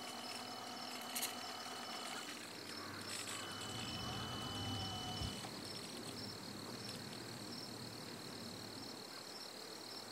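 Insects trilling steadily in a high, pulsing chorus. A faint low rumble rises and fades in the middle, with a couple of soft clicks.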